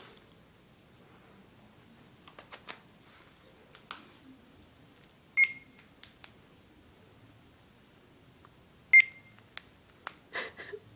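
Parrot mimicking a microwave oven: two short, loud beeps about three and a half seconds apart, with scattered clicks between them and a few short chirps near the end.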